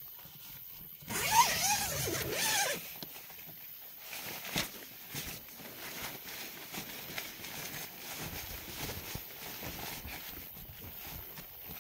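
Tent zipper pulled, a loud rasp lasting about a second and a half starting about a second in. This is followed by rustling and small knocks of gear being moved around in the tent.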